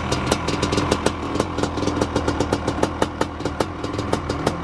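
Honda two-stroke motocross bike engine idling on its stand, with a rapid, uneven popping from the exhaust several times a second.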